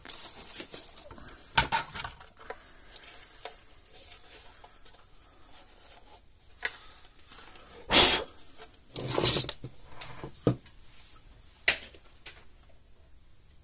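Hard plastic case halves of a battery fence energizer being handled and set on a wooden workbench: scattered knocks and clatters, the loudest two close together a little after the middle.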